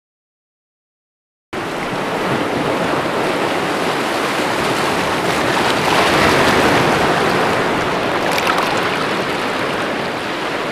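Silence, then after about a second and a half the steady rush of a waterfall splashing onto rock, swelling slightly in the middle.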